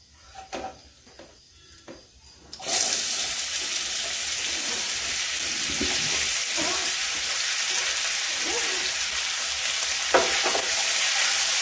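Chopped raw mango dropped into hot oil in a kadhai: a loud, steady sizzle starts suddenly a little under three seconds in, with a silicone spatula scraping and stirring the pieces a few times. Before the sizzle, only a few soft clicks.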